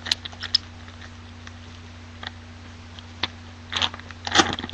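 Crinkling and tearing of a trading-card pack wrapper being ripped open by hand. It comes as short scattered crackles, with a denser burst near the end.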